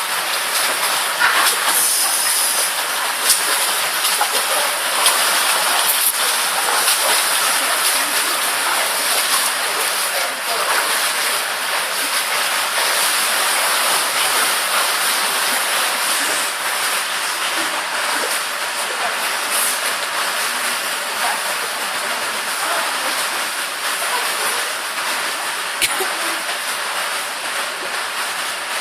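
Continuous splashing and churning of water as two people swim through a pool, a steady rushing hiss dotted with small splashes.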